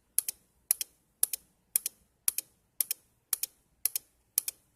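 Small relay on an electronics fire-alarm board clicking on and off about twice a second, each cycle a quick double click: the relay pulsing as the over-temperature warning.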